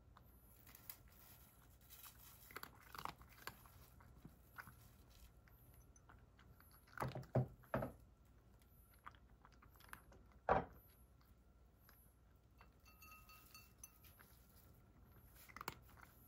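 Cat eating from a ceramic bowl: quiet chewing and crunching with many small clicks, a cluster of louder knocks about seven seconds in and one more about ten seconds in.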